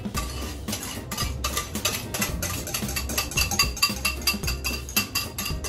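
Wire whisk stirring sriracha mayonnaise in a small bowl, clinking rapidly against the bowl's sides.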